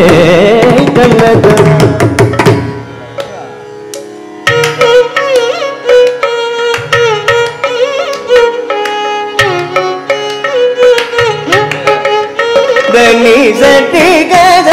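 Carnatic classical concert music: melodic vocal and violin lines over a steady drone, with mridangam and ghatam strokes. About two and a half seconds in the ensemble thins to the soft drone for a couple of seconds, then melody and percussion resume and build toward the end.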